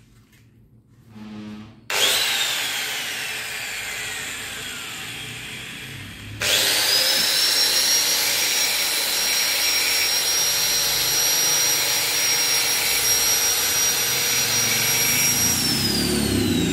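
Electric angle grinder switched on about two seconds in, then let wind down with a falling whine. It is switched on again and runs at a steady high whine for about nine seconds, cutting transverse grooves across a glazed drum-brake shoe lining, then is switched off and winds down near the end.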